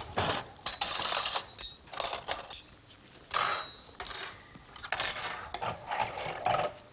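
Serving utensils clinking and scraping against china plates as food is dished up, a quick run of knocks and clinks, some with a short high ring.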